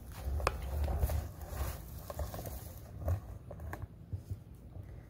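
Handling noise from a handheld camera being carried: a low rumble and scattered soft clicks and rustles.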